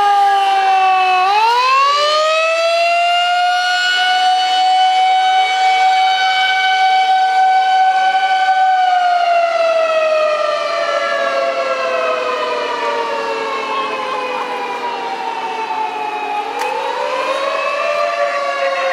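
Fire engine siren wailing in long, slow cycles: about a second in it climbs quickly to a high pitch, holds it for several seconds, then slowly falls, and starts to climb again near the end.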